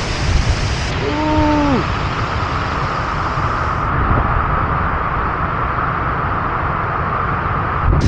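A large waterfall in full flow: a loud, steady rush of falling water with a deep low rumble underneath.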